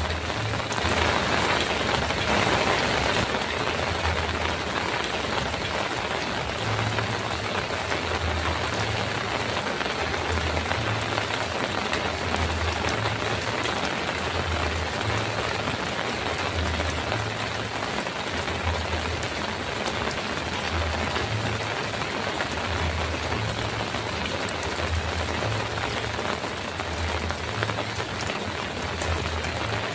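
Heavy rain falling steadily on a metal roof, a dense, even hiss that is a little louder in the first few seconds, with a low, uneven rumble underneath.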